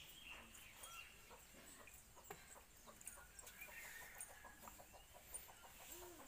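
Chickens clucking faintly.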